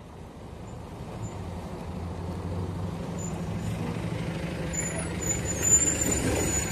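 PAZ-320402-05 city bus running, heard from inside: a steady low engine hum that grows louder over the first few seconds. Near the end there is a thin high squeal and a short hiss-like burst, in the manner of the bus's air system or brakes.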